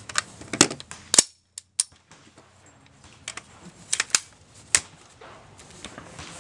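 Gunshots on an outdoor range: about eight sharp, separate reports at irregular spacing, the loudest a little over a second in. They come from other shooters, not from the AR-15 being loaded.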